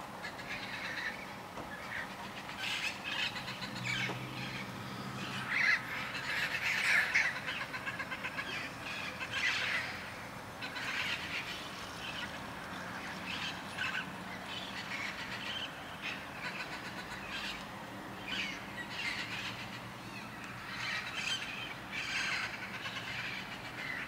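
Wild Amazon parrots calling again and again, many short overlapping calls that are loudest from about five to ten seconds in. A low steady hum runs underneath for part of the time.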